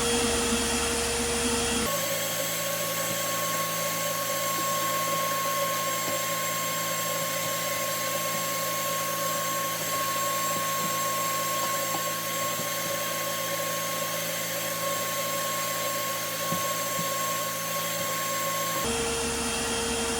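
Steady whine of a small motor. Its pitch changes abruptly about two seconds in and changes back near the end.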